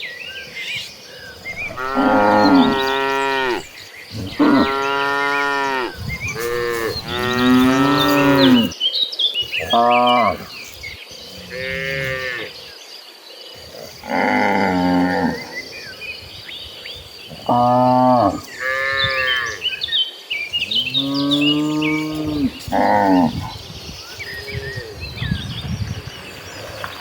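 Cattle in a herd mooing again and again, one long call after another from different animals, several overlapping in places.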